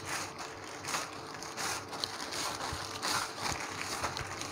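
Thin plastic sheet rustling and crinkling in repeated swishes as palms press and spread a ball of stuffed dough flat beneath it.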